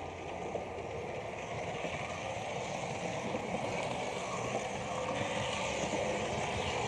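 H0-scale model train running along the track, heard from a camera riding on it: a steady whirring of the small motor and wheels on rail, growing slightly louder.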